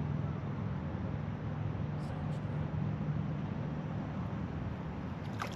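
Low, steady motor hum that fades out about halfway through, over a background hiss, with a couple of faint ticks about two seconds in.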